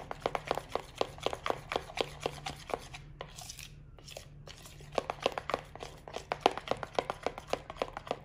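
Metal spoon clicking and scraping against the side of a mixing bowl while stirring thick caramel sauce. It makes rapid clicks, several a second, that stop for about a second near the middle and then carry on.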